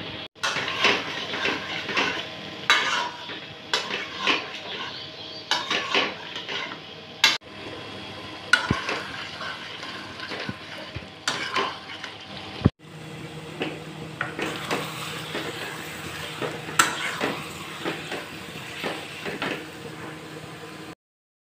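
A wooden spatula stirring chicken and potato pieces in a metal kadai, with irregular knocks and scrapes against the pan over the steady sizzle of the food frying.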